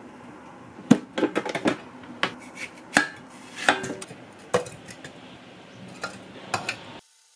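Kitchen utensils clinking and tapping against a stainless steel container and a glass blender jar as watermelon chunks are moved: a dozen or so sharp, irregular clicks that cut off suddenly near the end.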